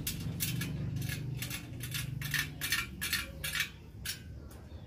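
Steel motorcycle wheel spokes clinking against each other and the rim as they are laced into the hub: a run of about a dozen light metallic clinks, growing sparser near the end.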